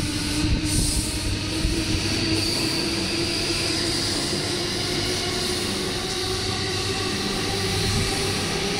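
JR East E235-1000 series electric train pulling out along the platform. The whine of its inverter-driven traction motors rises slowly in pitch as it gathers speed, over a steady rumble of wheels on rail, with a few knocks from the wheels in the first couple of seconds.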